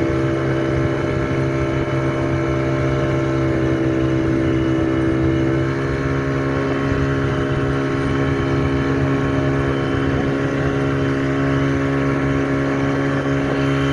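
Motorboat engine running steadily at speed while towing a loaded banana boat, one unchanging drone over the rush of water.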